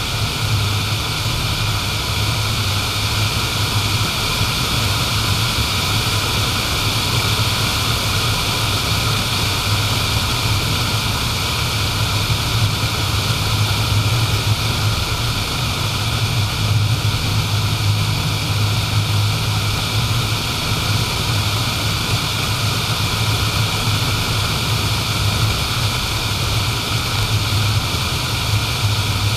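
A car driving at a steady speed: an even low drone with a constant hiss of tyre and road noise over it.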